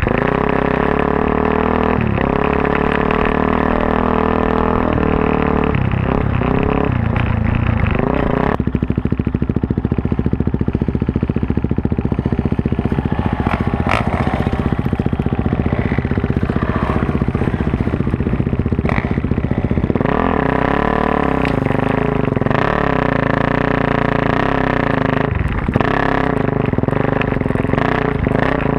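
Big-bore 440 Suzuki DR-Z400S single-cylinder four-stroke, with a freshly rebuilt top end and a full Yoshimura off-road exhaust, running under way off-road, its revs rising and falling with the throttle. The engine note drops back from about 8 seconds in and picks up again about 20 seconds in, with a few sharp knocks along the way.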